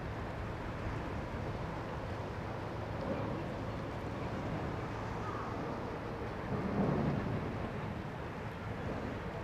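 Wind rumbling on the microphone over a steady low hum, with a stronger gust about seven seconds in.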